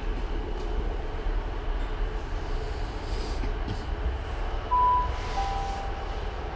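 Steady low rumble of a train at a railway platform; about five seconds in, a station public-address chime sounds two notes, the second lower, ahead of an announcement.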